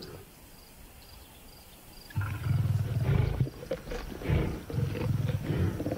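Lions growling in repeated rough bouts over a freshly caught buffalo calf, starting about two seconds in.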